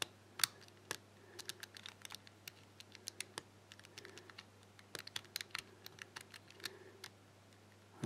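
Master Lock ProSeries 1178 four-wheel combination padlock's number wheels being turned by thumb, giving faint, irregular small clicks as a wheel steps from number to number. The wheels are turned while the shackle is pulled firmly, to feel which position is loose enough to be the true gate.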